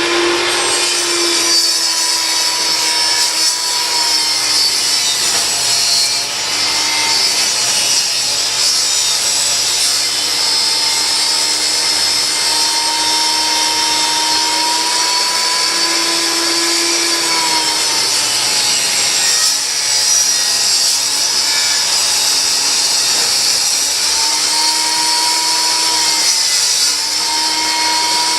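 Table saw running and ripping a board lengthwise into a half-inch strip: a steady motor and blade whine that sags in pitch a few times as the blade bites into the wood.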